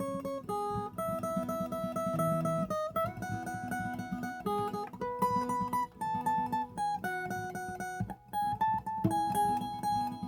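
Viola caipira (Brazilian ten-string guitar) playing a slow melodic solo, single held notes carried over strummed chords, with a short break about eight seconds in.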